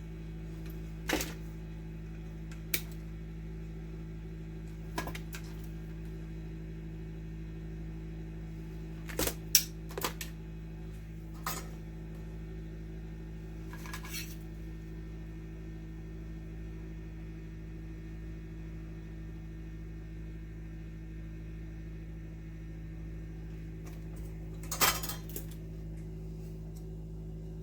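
Scattered small clicks and short metallic clatters of hand tools and wire being handled on a workbench, about a dozen spread out, the loudest around ten seconds in and near the end. A steady low hum runs underneath.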